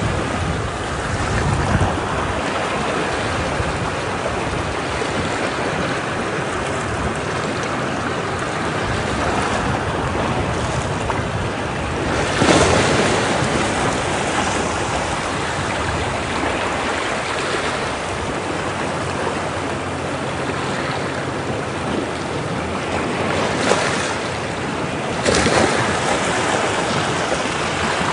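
Ocean waves breaking against rocks: a steady rush of surf, with two louder crashes, about twelve seconds in and near the end.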